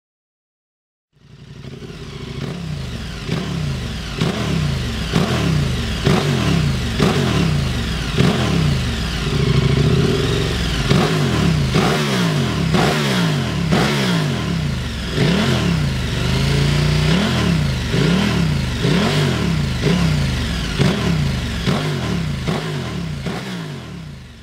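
KTM 1290 Super Adventure's V-twin engine revving through an SC-Project titanium and carbon-fibre Adventure exhaust, the throttle blipped up and back down over and over, about once a second. The sound fades in about a second in and fades out near the end.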